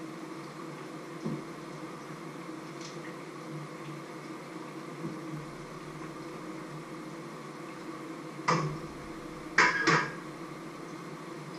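Metal kitchenware clattering at a counter: three sharp clanks near the end, the last two close together, over a steady low hum.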